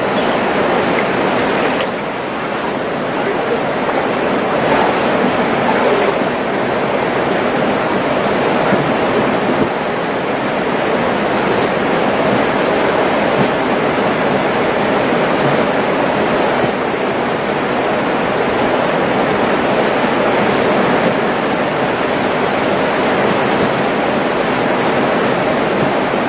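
Typhoon storm noise: a steady, loud rush of heavy rain and water, with a few faint knocks.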